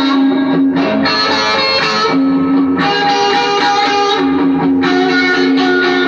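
Electric guitar playing in a blues-rock style: full, held chords that ring and change every second or two.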